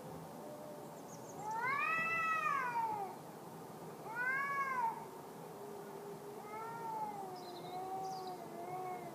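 Cats yowling and caterwauling. There are two loud yowls that rise and fall, then a long, low, wavering moan.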